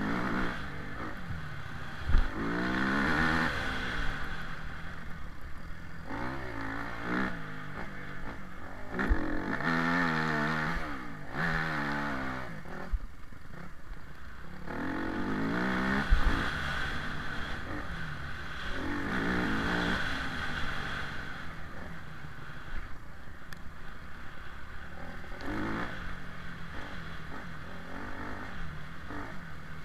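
Off-road vehicle's engine revving up and easing off again and again as it climbs and drops in pitch, with clatter and a few sharp knocks as it jolts over the bumpy track.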